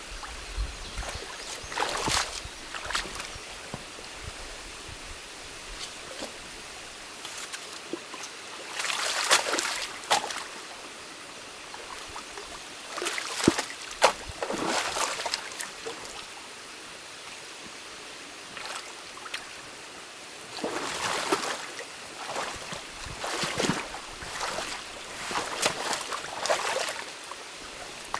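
Stream water running steadily, with a burst of splashing and sloshing every few seconds as water and dam material are disturbed during manual beaver dam removal.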